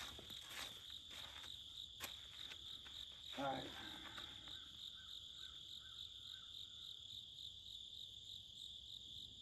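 Steady, pulsing high-pitched chorus of insects chirring, with a short faint murmur about three and a half seconds in.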